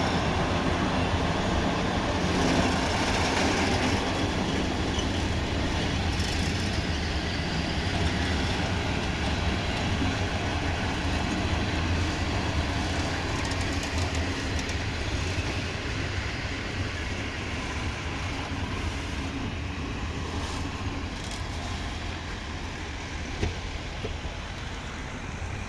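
Container wagons of a braking freight train rolling past, a steady rush of wheel and brake noise on the rails. It slowly fades as the last wagon goes by near the end.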